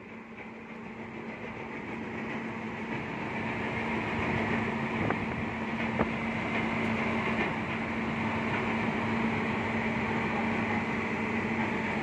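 Volvo EC210B crawler excavator's diesel engine running steadily with a constant hum, growing louder over the first few seconds and then holding level, with a couple of sharp clicks about halfway through.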